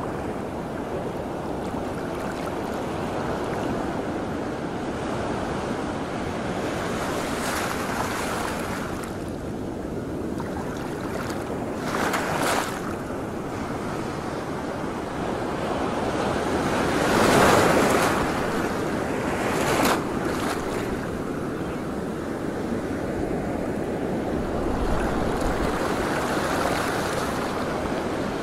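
Choppy sea water washing and splashing at the waterline, with wind noise on the microphone; the wash surges louder several times, most strongly about two-thirds of the way through.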